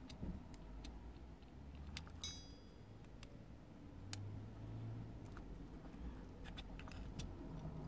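Faint scattered clicks and light taps of small metal and plastic parts being handled on the opened Alpine 5313 car cassette player, with one sharper click that rings briefly about two seconds in.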